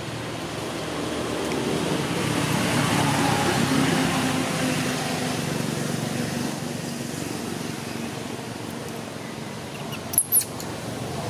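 A motor vehicle passing, its noise swelling over a few seconds and then fading. Near the end, two short, sharp high-pitched squeaks.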